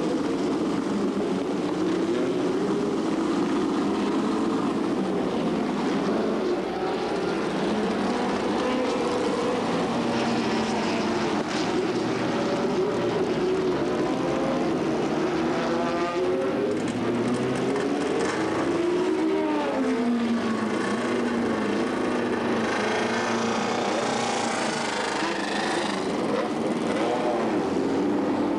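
Several historic sports-racing car engines running around the circuit, their pitch rising and falling as the cars accelerate, shift and go by, with a few engines overlapping at once. Around the middle, a couple of engines sweep quickly up and down in pitch.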